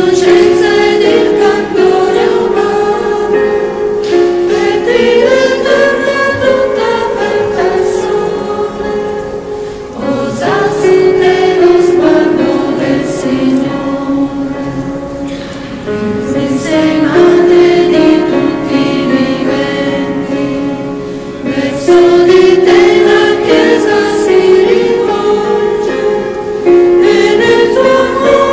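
A church choir singing a slow hymn with keyboard accompaniment, in long held phrases with short breaths between them about a third and two thirds of the way through.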